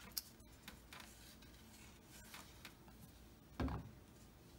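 Faint handling of folded paper parts being glued together: scattered soft taps and rubbing, with one louder bump about three and a half seconds in.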